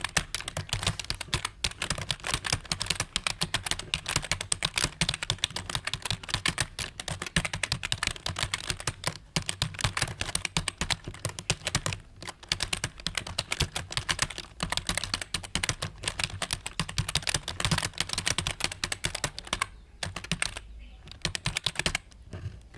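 Fast typing on a computer keyboard: a rapid, continuous stream of key clicks at a typing-test pace of about 58 words per minute, broken by a few short pauses near the end.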